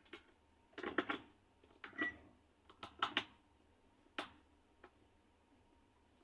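Kitchen clatter: a series of short knocks and clinks from objects being handled and set down, in about six separate groups, with a brief high ping about two seconds in.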